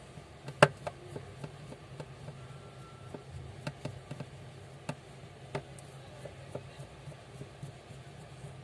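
Light clicks and taps of a screwdriver tip and fingers working on the frame of an opened Vivo V21 smartphone, irregular, with one sharp click about half a second in. A low steady hum runs underneath.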